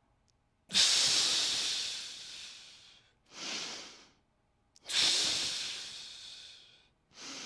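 A man's slow, deep breathing, paced breath cycles during a held stretch: two long breaths, each starting strong and fading over about two seconds, with shorter breaths between them.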